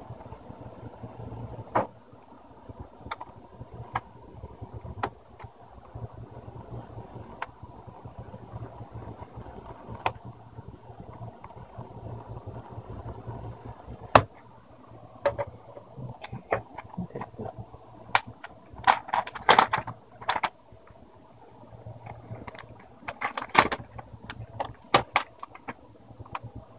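Scattered small clicks and taps from handling laptop parts and a small screwdriver, sparse at first and busier and louder in the second half, over a steady low hum.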